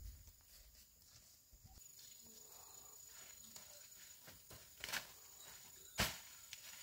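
Footsteps on a dirt path, then rustling vegetation as stems are cut by hand with a knife, with two sharp snaps in the second half, the second the loudest. A thin steady high tone runs behind.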